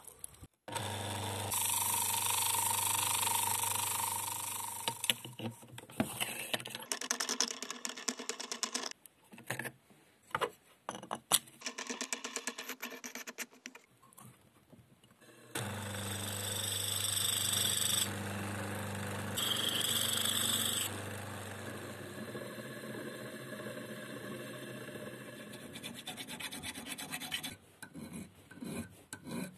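Small electric bench grinder running in two stretches, with short bursts of steel being ground in the second. Between them come clicks and scrapes of hand tools on metal, and near the end quick rubbing strokes of an abrasive stick on a steel chisel blade held in a vise.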